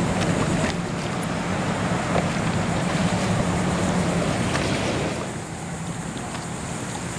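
Outdoor waterside noise: wind rushing over the microphone and water lapping, with a steady low engine hum underneath. The hum fades and the whole sound drops a little about five seconds in.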